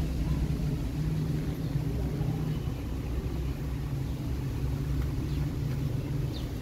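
Domestic cat purring close up while being stroked: a steady low rumble that briefly changes every second or two with her breathing.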